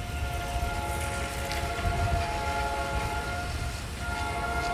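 Train horn sounding a multi-note chord in long held blasts, with a short break about four seconds in, over a low rumble.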